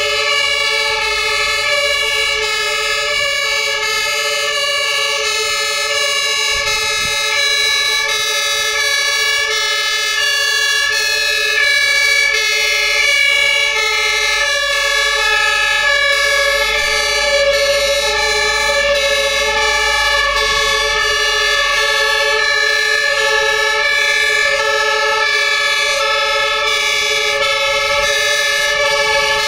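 Two-tone fire engine sirens (German Martinshorn) from several vehicles sounding at once, their high and low notes overlapping into one steady, unbroken chord.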